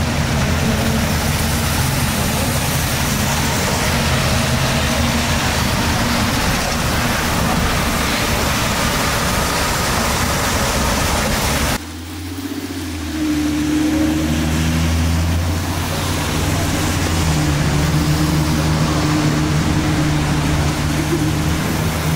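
Wet-weather city traffic: the hiss of tyres on rain-soaked pavement over the steady running of vehicle engines. About halfway through the sound breaks off suddenly, and a vehicle engine's steady hum comes in with less hiss behind it.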